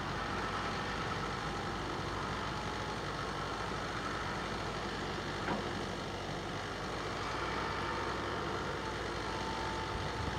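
Ilyushin Il-86VKP (Il-80) taxiing, its four Kuznetsov NK-86 turbofans running at low power: steady engine noise with a faint whine in the second half and a single brief tick about halfway through.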